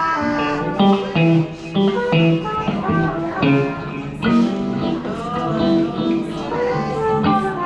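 A live band playing at a sound check, led by electric guitar playing a run of single notes over a low bass line.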